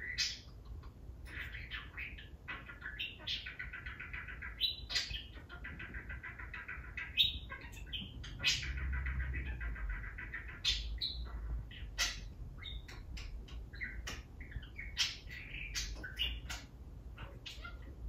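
Budgerigar chattering and warbling in a continuous stream of twittering notes and quick sharp clicks, the running chatter of a talking budgie.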